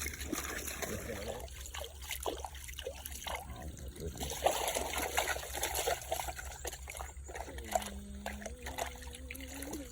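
Water trickling and sloshing with small splashes, over a steady low hum.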